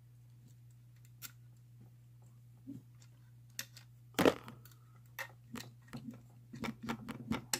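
Scattered small metallic clicks and scrapes of homemade bicycle-spoke lock picks, a tension wrench and an overlifter, working inside a lever lock; a few isolated ticks at first, then a busier run of clicks from about four seconds in, over a low steady hum.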